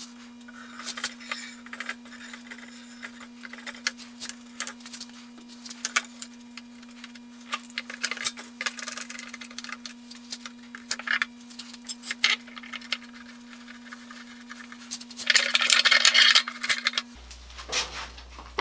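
Metal clamps and wooden boards being handled and tightened: scattered clicks, light rattles and knocks, with a louder scraping rub about fifteen seconds in. A steady low hum runs underneath and stops near the end.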